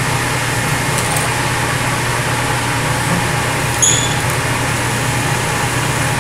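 Milling machine spindle running steadily in high gear while a drill spots a hole in a steel block, with a brief high squeal about four seconds in as the bit cuts.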